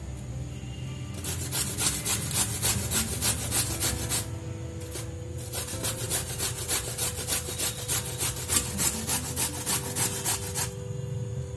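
Fresh coconut grated by hand on a stainless steel box grater: a rasping scrape with each stroke, about three strokes a second, with short pauses near the start, about four seconds in, and near the end.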